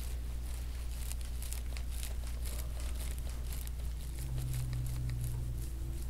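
Oiled hand kneading bare skin in a deep-tissue massage, giving many small sticky crackles and ticks over a steady low hum. About four seconds in, a low steady drone joins for about a second and a half.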